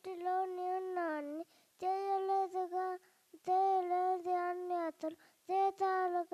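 A young boy singing unaccompanied into a microphone, in four short phrases of held, steady notes with brief pauses for breath between them.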